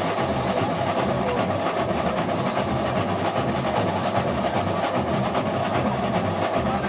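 Samba school drum corps (bateria) playing a dense, continuous samba rhythm: deep surdo bass drums pulsing under a thick layer of snares and other small percussion.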